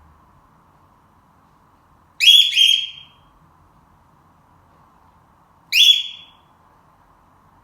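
Cockatiel giving loud, high, alarm-like calls at intervals: a quick double call about two seconds in and a single call near six seconds, each under a second long.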